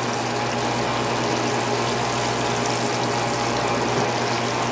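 Steady hiss and crackle of hot oil sizzling in a frying pan as pan-fried, crust-coated fish fillets are lifted out with metal tongs, over a low steady hum.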